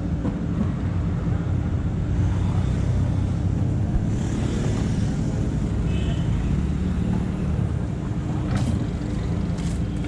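JCB 3DX backhoe loader's diesel engine running steadily under load as the machine digs earth and swings its bucket, with a couple of sharp knocks near the end.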